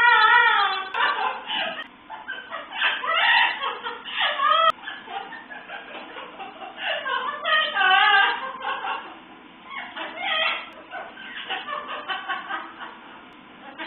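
A parrot mimicking human laughter in four or so short bouts of chuckling, each a second or two long, with pauses between.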